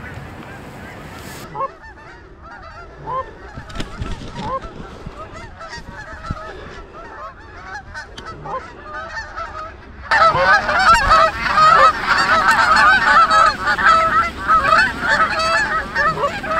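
Geese honking: a few scattered honks at first, then about ten seconds in a large flock's loud, dense chorus of honking sets in abruptly and carries on.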